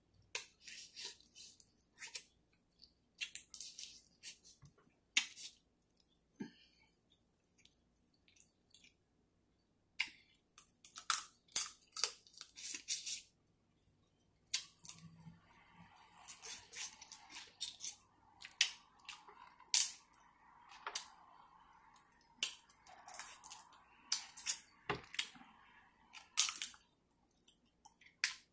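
Crab leg shells being cracked and snapped apart by hand: sharp, irregular cracks and crunches in quick clusters, with wet chewing and sucking as the meat is eaten.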